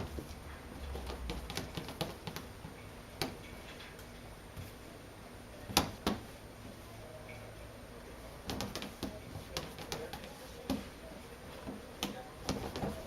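Scattered light taps and knocks: a sharp knock right at the start, two more about six seconds in, then a busier run of small clicks and taps in the last few seconds.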